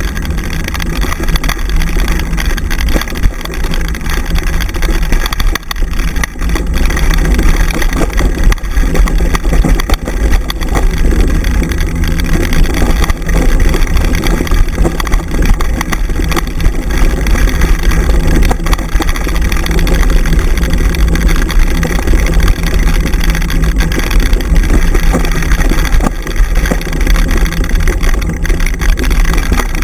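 Dryland dog scooter rolling fast over a dirt trail: a steady, loud rumble and rattle from the wheels and frame, mixed with wind noise on the handlebar-mounted microphone.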